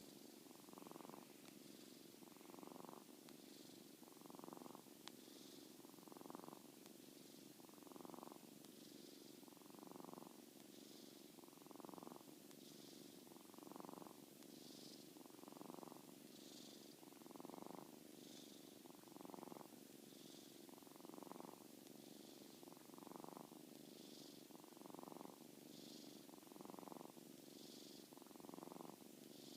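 Seven-week-old kitten snoring faintly in deep sleep, rhythmic and even, about one breath roughly every two seconds.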